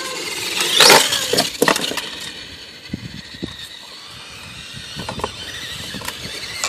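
RC monster truck accelerating hard across asphalt: its motor whines up loudly about a second in, with a few sharp knocks and rattles as it drives off, then a thin high motor whine that fades as it gets farther away.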